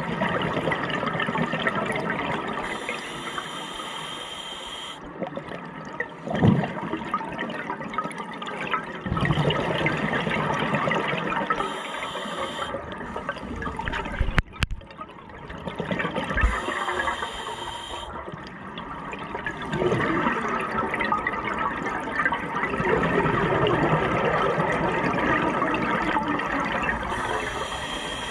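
Scuba regulator exhaust bubbles rushing and gurgling past the underwater camera, swelling and fading in waves with each exhalation. There is a sharp bump about six seconds in.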